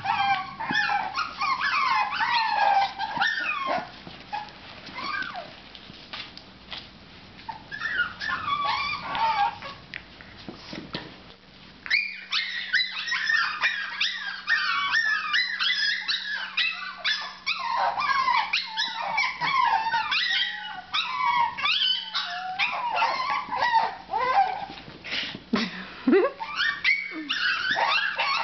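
Young puppies, a few weeks old, whining and yipping in many short high-pitched cries that overlap, quieter for a few seconds near the start and then busy again.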